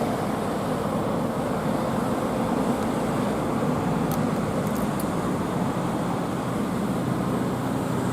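Steady road traffic noise: the even rumble of passing vehicles.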